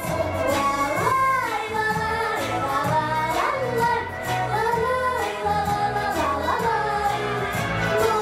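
A young girl singing a pop song into a microphone over an instrumental accompaniment with a repeating bass line.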